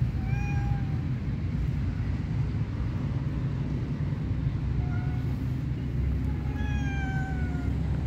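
Stray cat meowing three times: a short meow near the start, another short one about five seconds in, then a long meow that falls slightly in pitch. A steady low rumble runs underneath.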